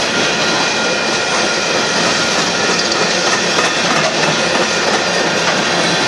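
Coal train's freight cars rolling past: a steady rush and rattle of steel wheels on the rails.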